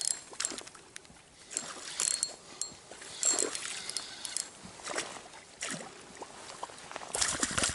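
Scattered short splashes and rustles, with a few brief high squeaks, as a hooked fish is played on a light spinning rod and reel.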